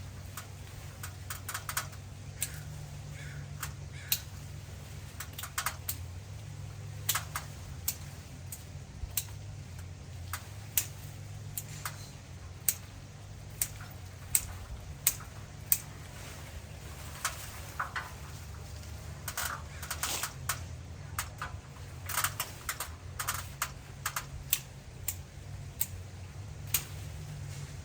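Irregular sharp clicks and snaps, sometimes several in quick succession, over a steady low hum.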